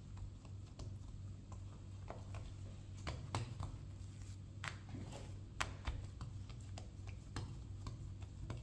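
Hands pressing and flattening soft bread dough on a marble countertop: irregular soft pats and taps, with a few sharper clicks around the middle, over a low steady hum.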